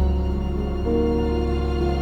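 Soft, slow background music with sustained notes over a deep, steady bass line.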